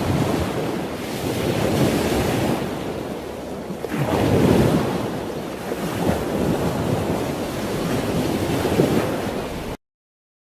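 Ocean surf with wind: a steady rush of breaking waves that swells and eases every couple of seconds.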